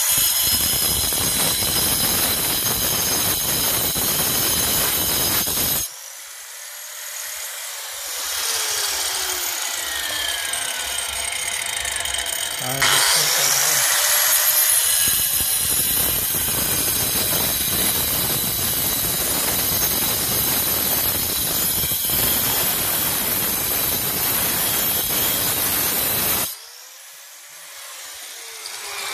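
Angle grinder with a diamond disc cutting a groove into stone, a loud grinding hiss. About six seconds in and again near the end the disc comes off the cut and its pitch falls away, then it bites back in.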